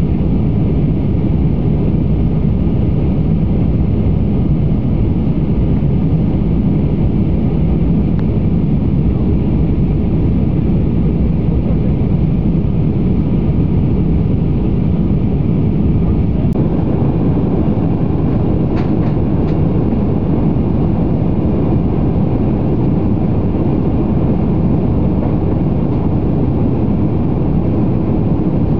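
Steady cabin noise of an airliner in flight, the even rumble of engines and rushing air heard at a window seat. A few faint clicks come about two-thirds of the way through.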